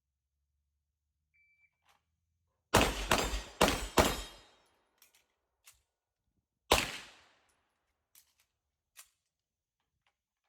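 Pistol shots from a 2011-pattern handgun: four fired in quick succession, then a single shot about two and a half seconds later. A few faint ticks follow.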